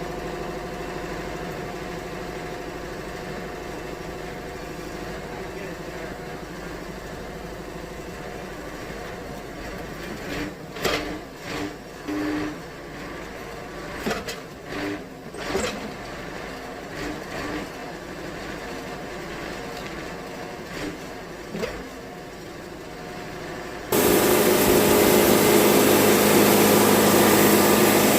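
Wood-Mizer portable band sawmill's engine running steadily, with a string of short mechanical whirs and knocks in the middle. Near the end the sound jumps abruptly to a much louder steady running.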